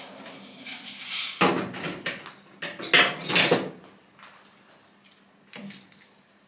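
Turning cut on a large aluminium tube in a Colchester 1800 metal lathe, with a burst of loud metallic clattering and rattling from about a second and a half in to three and a half seconds in. It then drops to a faint running noise, with one short rattle near the end.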